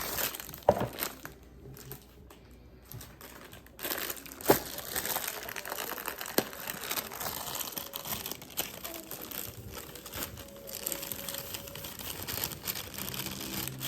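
Rustling and crinkling of packaging handled in a kitchen while cake-batter ingredients are measured out, broken by a few sharp knocks of utensils or containers, the loudest about half a second in and again around four and a half seconds.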